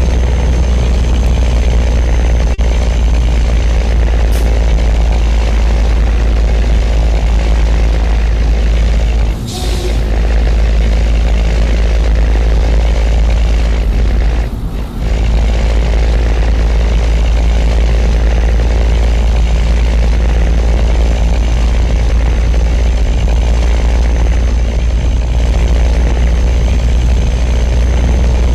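Scania truck engine running under load on the pull, a steady deep drone. The level drops briefly twice, about a third of the way in and about half way through.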